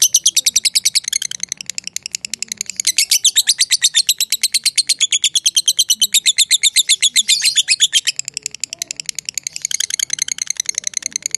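Lovebird chattering in a long, unbroken string of sharp, high chirps, about ten a second, loudest through the middle: the long 'ngekek' chatter that lovebird keepers prize.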